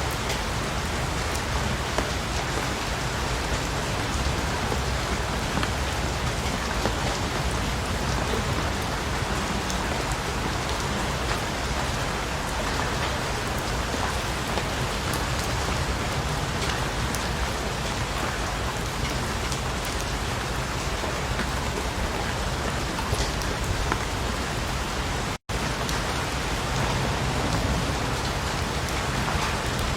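Steady rain falling, an even hiss with the light patter of single drops. The sound cuts out for an instant about 25 seconds in, then carries on unchanged.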